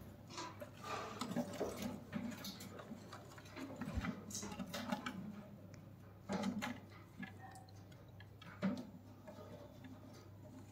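Green-cheeked conure chicks in a wooden nest box: quiet scattered ticks and scratches from them shifting on the wood-shaving bedding, with a few short low calls every couple of seconds.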